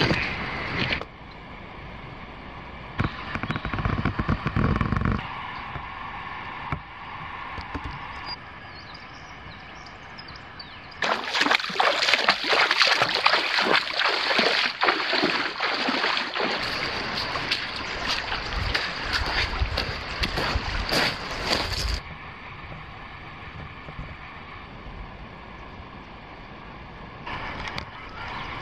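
Bare feet splashing and sloshing through a shallow creek, a quick run of loud wading steps lasting about ten seconds near the middle. Earlier, a few seconds of footsteps crunching on river stones.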